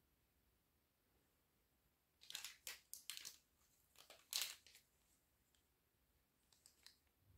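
Small plastic toys being handled: a run of crinkly rustling and light clatter between about two and five seconds in, then a few faint ticks near the end.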